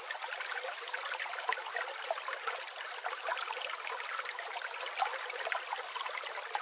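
Running water trickling steadily, with many small bubbling blips.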